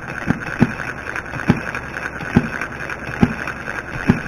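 Model six-cycle single-cylinder gas engine running just after starting: a steady mechanical clatter with a low firing thump a little under once a second.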